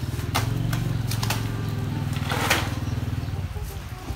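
A small engine running steadily for about three and a half seconds, then easing off, with a few sharp cracks and a brief noisy burst about halfway through.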